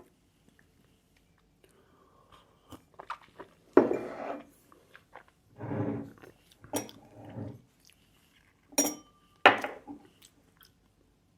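Whisky bottle and tasting glass being handled: scattered light knocks and rustles, then two sharp glass clinks with a brief ring near the end.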